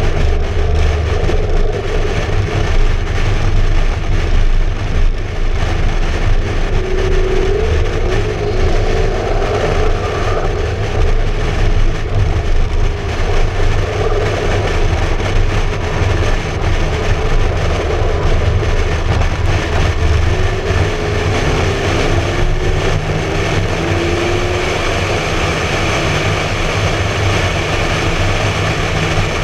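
McLaren MP4-12C Spider's twin-turbo V8 cruising at a steady highway speed with the roof down. The engine's drone is steady under wind and tyre noise, with wind rushing over a microphone mounted outside the car.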